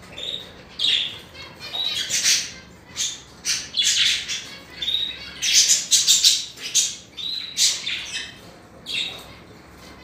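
Budgerigar chattering: a rapid string of short, scratchy calls and squawks, busiest around the middle and dying away in the last second.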